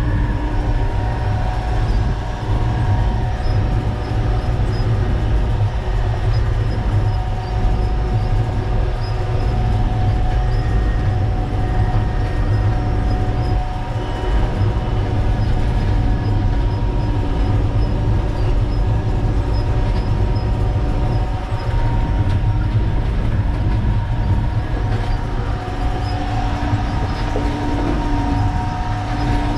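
Concrete mixer truck driving, heard from inside the cab: a steady, heavy low rumble from the diesel engine and drivetrain, with a constant whine of several tones above it.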